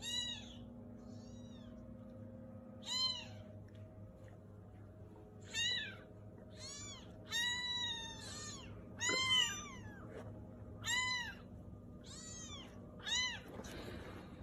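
Very young kittens mewing: about a dozen thin, high-pitched mews, each rising then falling in pitch, with short pauses between them.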